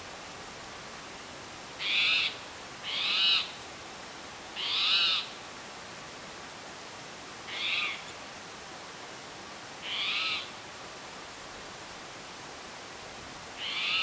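An unidentified animal calling: six short, high calls spaced irregularly one to three seconds apart, over a steady background hiss.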